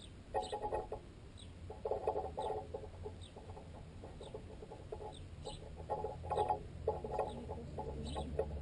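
Sparrows pecking at a piece of baguette wedged in a tent guy line, heard as bursts of rapid knocking carried up the line into the tent pole the camera is mounted on, which makes the pecking unnaturally loud. Short falling sparrow chirps come over it about once a second.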